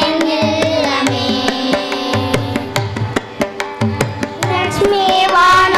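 A children's group sings a Carnatic devotional song with hand-drum accompaniment. The singing thins out in the middle while the drum strokes carry on, then the voices come back in strongly near the end.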